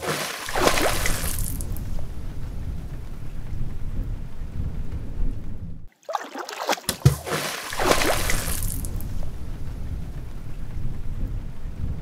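Water-splash intro sound effect: a sharp hit and a burst of splashing spray that settles into a steady low rumble. The rumble cuts off just before halfway, and after a brief silence the same hit, splash and rumble play again.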